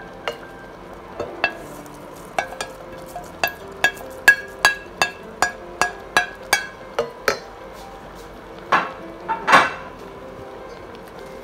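A wooden spoon knocking again and again against a ceramic plate and a stainless steel pot, about two knocks a second, each with a short ring, as chopped green onions are scraped into the pot. About nine seconds in come two louder scraping sounds as the spoon stirs the pot.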